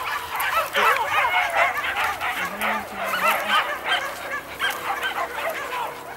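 A pack of boar-hunting dogs yelping and whining together, many overlapping high-pitched calls without a break.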